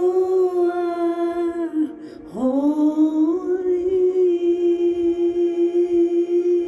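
A single voice singing long, held wordless notes over background music. About two seconds in the note breaks off, then the voice slides upward into a new note and holds it steadily.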